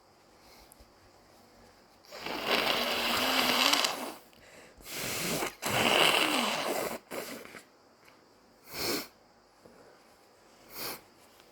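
A person sneezing. There is a long, breathy, wheezy gasp about two seconds in, then a loud sneeze around the middle with a voice that falls in pitch, followed by two short nasal breaths near the end. The uploader suspects the sneezing is an allergy set off by getting wet.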